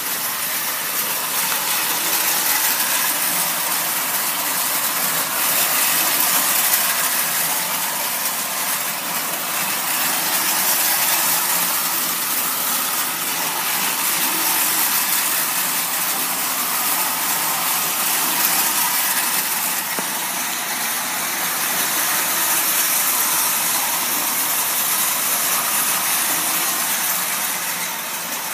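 Marx tinplate toy diesel locomotives running around three-rail tinplate track: a steady whir of the electric motors with the rattle of wheels on the metal rails, going on without a break.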